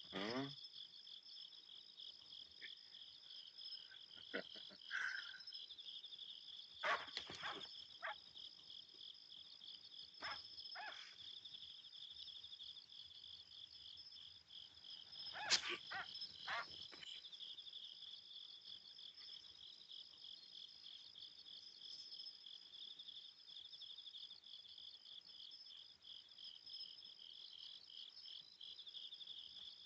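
Crickets chirping in a steady, continuous trill, with a few short knocks scattered through.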